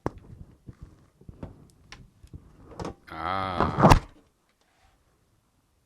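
Plastic laptop case being handled: a run of light clicks and knocks, then about three seconds in a loud squeaky scrape of plastic lasting about a second, its pitch wavering.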